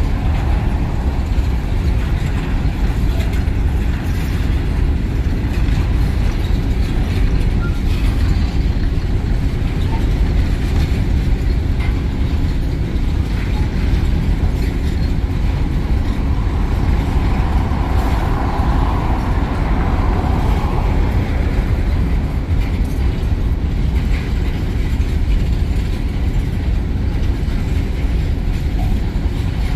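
Freight train of empty hopper cars rolling steadily past, a continuous low rumble of wheels on rail. A mid-pitched hum swells and fades about halfway through.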